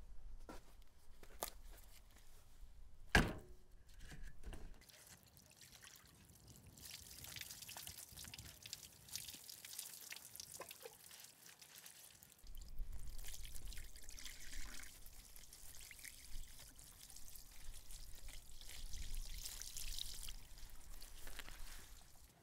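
Water poured from a cup over a raw catfish fillet, trickling and splashing on a wooden table as gloved hands rinse the flesh, steady from about six seconds in. A single sharp knock about three seconds in.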